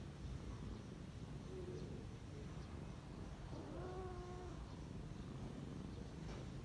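Kitten purring quietly with a steady low rumble, broken by a short, soft mew about four seconds in.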